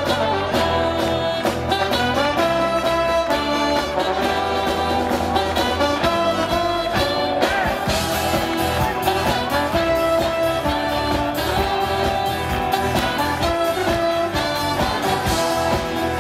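Live band playing, with a singing voice and a steady beat.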